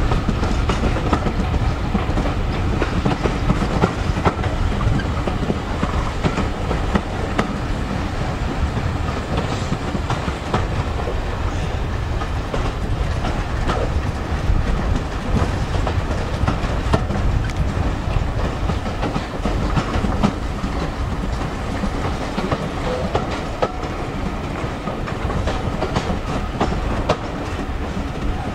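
Train ride heard from an open coach window: passenger coaches running along the track with a steady rumble, and the wheels clicking over rail joints again and again.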